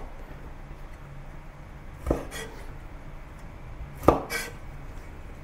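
Two single cuts of a cleaver through a bird's eye chilli, striking the wooden cutting board about two seconds apart.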